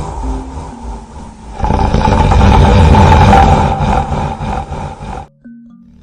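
Exaggerated comic snoring sound effect: a rough rumbling snore, then one long, much louder snore starting about one and a half seconds in and cutting off suddenly near the end.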